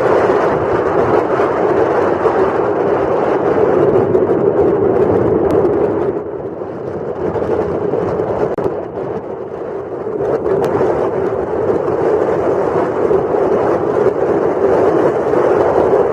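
Powerboat running under way: a steady engine drone mixed with rushing water, easing off for a few seconds in the middle before building again.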